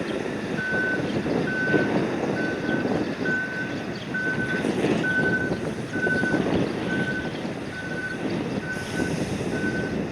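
Electronic warning beeper on cargo-handling machinery, sounding about eleven short, even beeps a little under a second apart, over loud background noise.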